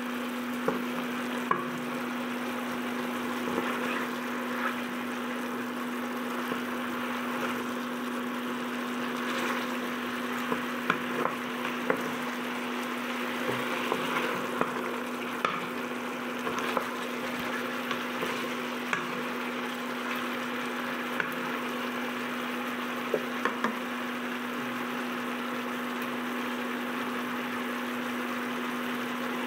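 Chicken adobo sizzling and simmering in its sauce in a nonstick wok, with a wooden spatula clicking and scraping against the pan every so often as the pieces are stirred. A steady hum sits under it.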